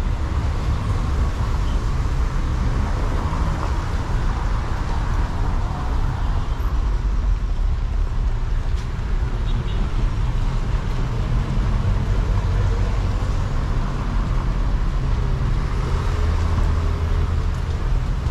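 Steady road traffic noise: a continuous low rumble of vehicles on a wet town street.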